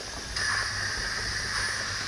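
7mm-scale model goods train running past on the layout's track: a steady rushing rolling noise, a little louder from about a third of a second in.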